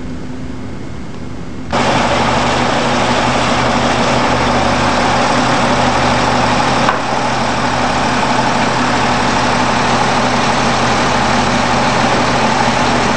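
Heavy construction equipment engine running at a steady idle. It comes in suddenly about two seconds in, with a brief click near the middle.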